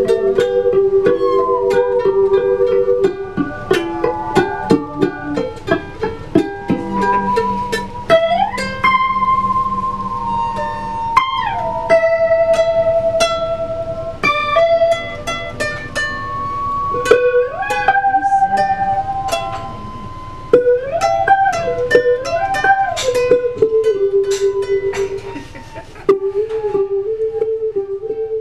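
Acoustic band music: plucked string instruments picking short notes under a held melody line that slides up and down between pitches.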